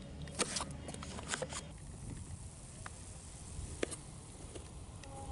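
Chef's knife cutting tomatoes and knocking on a wooden cutting board: a quick run of knocks in the first second and a half, then a few scattered knocks.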